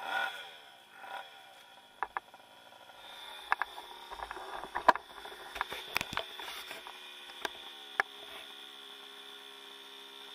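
A small motorbike engine's revs die away over the first second, then it idles with a steady low hum. A few sharp clicks and knocks come over it.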